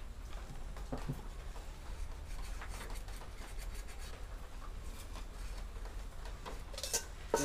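Ballpoint pen scratching faintly as it traces around the base of an aluminium pot onto a thin aluminium baking-tin sheet, with a few light knocks from the pot and sheet being handled.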